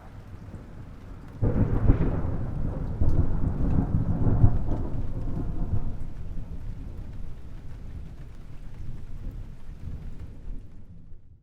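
Thunder: a faint rumble, then a sudden loud crack about a second and a half in that rolls on with several further peaks and slowly fades away, cut off abruptly at the end.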